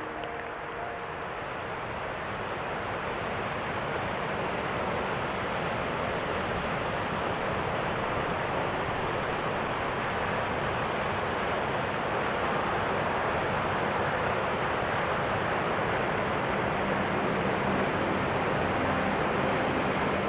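Waterfall rushing: a dense, steady roar of falling water that grows slightly louder over the first few seconds and then holds even.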